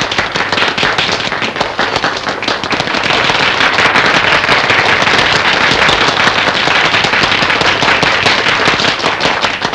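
Applause from a small crowd of guests: many hands clapping in a dense, even crackle that grows fuller about three seconds in and thins near the end.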